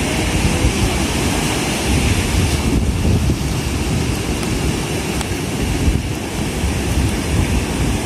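Strong wind buffeting the microphone over the steady wash and crash of sea waves breaking on a beach.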